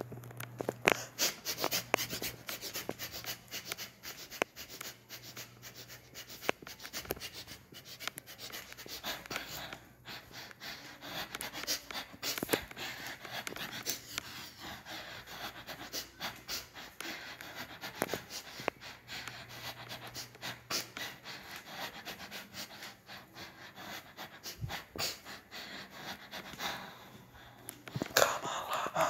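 A person breathing heavily close to the microphone while walking, with footsteps and the many small clicks, knocks and rubs of a handheld phone being carried.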